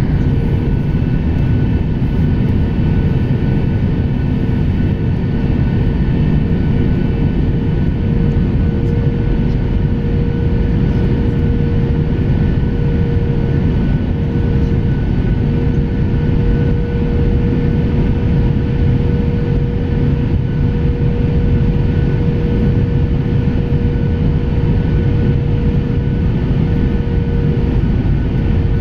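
Steady cabin noise inside a Boeing 737-800 airliner on its descent: a low, even rush of turbofan engine and airflow with a steady engine hum held through it.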